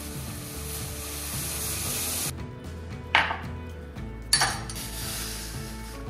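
Background music, with a hiss for the first two seconds and two short clatters of kitchen utensils about a second apart near the middle.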